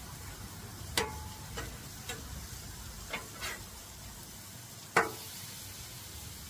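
Metal spatula clinking and scraping on a flat-top griddle as crab cakes are lifted and turned, with a steady frying sizzle underneath. About half a dozen sharp clinks, the loudest about a second in and about five seconds in.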